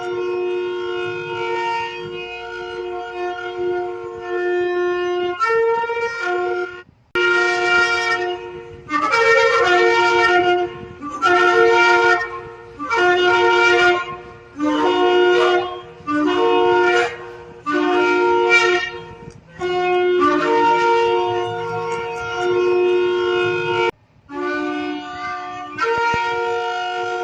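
Shofar (ram's-horn trumpet) blowing: long held blasts, broken in the middle by a run of about eight shorter blasts roughly a second and a half apart, then long blasts again.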